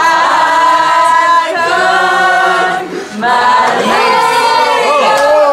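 Several voices singing together like a choir, with little or no accompaniment, holding long steady notes. There are short breaks about a second and a half and three seconds in.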